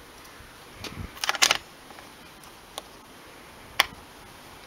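Sharp metallic clicks and knocks from a hand handling a hinged aluminium garden-railway access bridge and its brass barrel bolt: a quick cluster of clicks about a second in, then two single clicks, the last and sharpest near the end.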